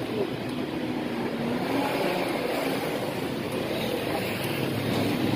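Steady running noise of a motor vehicle engine, with a faint wavering hum and no sharp knocks.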